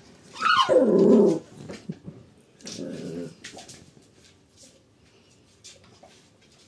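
Shiba Inu puppy vocalizing: a loud whining cry about half a second in that falls steeply in pitch, then a shorter, lower growl around three seconds in during play, followed by faint clicks and scuffs.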